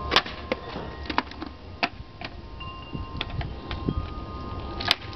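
Skateboard deck and wheels clacking and knocking on a hard surface during tricks: a sharp loud clack just after the start, a few lighter knocks in between, and another loud clack near the end.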